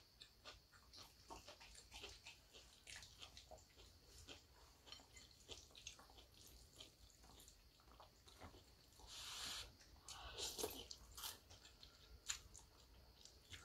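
Faint eating sounds of a person having instant noodles: quiet chewing and small mouth clicks, with a short louder slurp of noodles about nine to ten seconds in.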